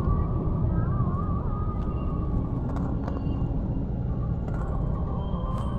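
Steady road and engine rumble inside the cabin of a Honda car cruising on a highway.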